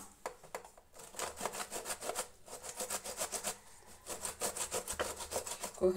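A small tomato rubbed quickly back and forth over a perforated plastic hand grater, making an even run of scraping strokes, several a second, with short breaks about two and a half and four seconds in.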